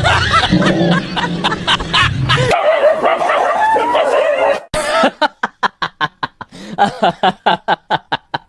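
Laughter over background music for the first two and a half seconds, then the music drops out and a long run of rapid, evenly spaced laughing, about six bursts a second, takes over.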